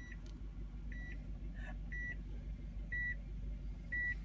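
A car's warning chime beeping about once a second, a short high beep each time, five beeps in all, over a low steady hum in the car's cabin.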